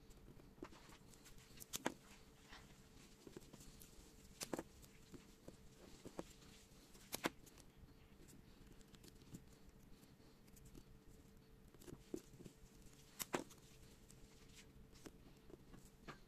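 Black electrical tape being wrapped by hand around a small plastic action camera: faint, scattered sharp clicks and crackles of tape and handling.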